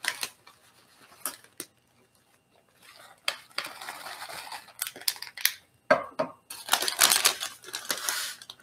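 Plastic bag of shredded cheese crinkling and rustling as it is tipped and shaken into a glass measuring cup, with a few light clicks near the start.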